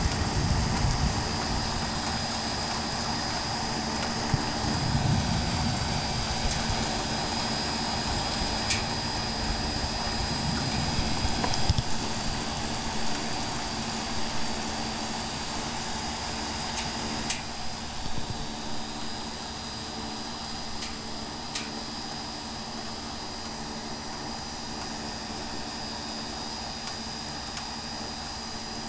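Distant thunder rumbling low, once near the start and again about five seconds in, over a steady background hiss, with a few sharp ticks here and there.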